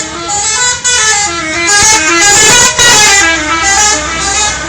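A bus's 'telolet' multi-tone musical horn playing a tune of quick, stepped notes. It grows louder and noisier for about a second around the middle, then carries on playing its notes.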